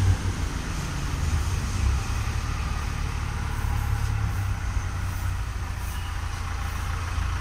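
Low, steady rumble of vehicle engines running nearby.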